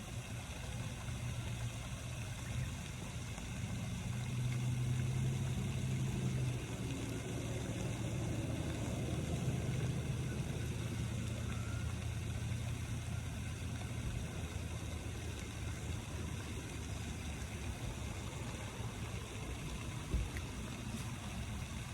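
A motor vehicle engine running with a low, steady hum, growing louder about four seconds in and easing back a few seconds later.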